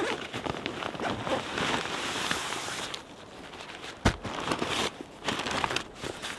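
Backpack fabric and straps rustling and crinkling as the pack is opened and gear is pulled out, with one sharp knock about four seconds in.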